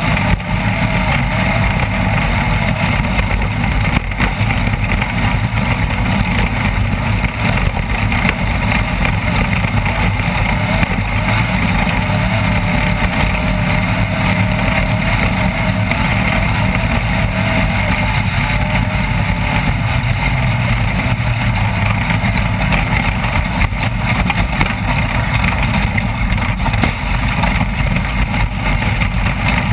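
Off-road race vehicle's engine running steadily at speed, mixed with constant rattling and terrain noise.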